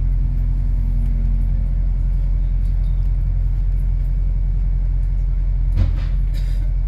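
Steady low rumble of a moving double-decker bus heard from on board, with a couple of brief rattles near the end.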